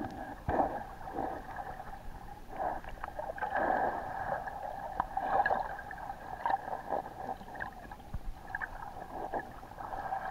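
Muffled water gurgling and sloshing heard through a submerged waterproof camera housing as a swimmer moves underwater past it. The sound swells and fades unevenly, with scattered light knocks.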